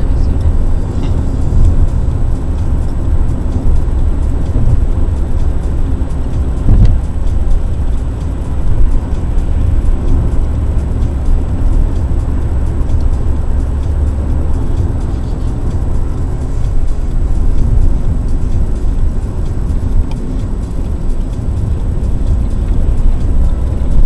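Car driving at road speed, heard from inside the cabin: a steady low rumble of tyres and engine, with a brief thump about seven seconds in.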